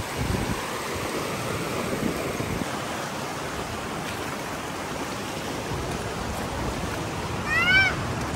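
River water rushing over stones, a steady hiss of flowing water. Near the end a short high-pitched call that rises and falls sounds once over it.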